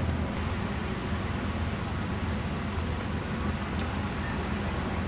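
Steady low rumble of motor vehicle noise, with a few faint ticks about half a second in.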